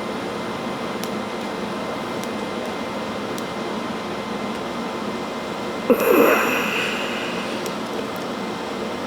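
Welding arc at about 100 amps laying a seam on quarter-inch steel plate: a steady hiss with faint ticks, with one louder sound that starts sharply about six seconds in and fades over a second.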